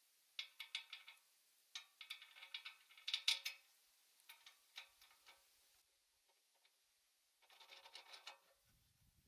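Ratchet wrench clicking in several short runs of rapid ticks with pauses between strokes, as a bolt on a garden shredder's steel frame is tightened.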